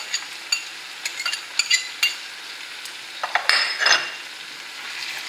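Cherry tomatoes, garlic and capers sizzling in oil in a frying pan as canned tuna is tipped in from a small bowl, with light clinks against the pan in the first two seconds and a louder burst of noise about three and a half seconds in.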